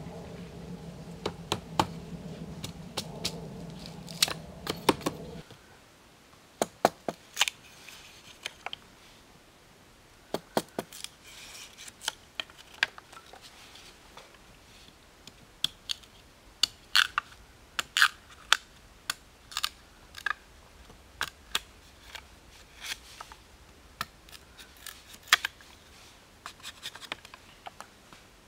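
A large knife cutting and splitting a green bamboo tube: sharp, irregular clicks and cracks as the blade bites and shaves the bamboo, some in quick clusters. A steady low hum is heard for the first five seconds or so, then stops suddenly.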